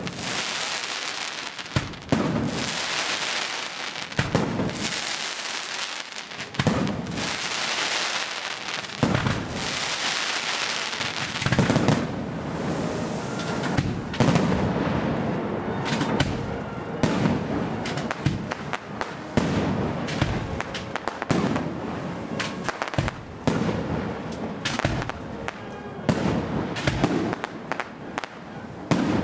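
Aerial firework shells bursting in quick succession, one sharp bang after another. Hissing runs between the bursts in the first half, and the bangs come faster and denser in the second half.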